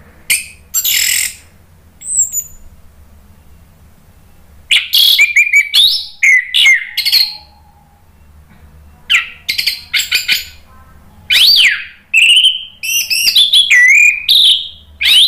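Orange-headed thrush singing loud, rapid phrases of varied whistled and gliding notes in bursts with pauses: a short burst at the start, another about five seconds in, and a longer, denser run from about nine seconds on.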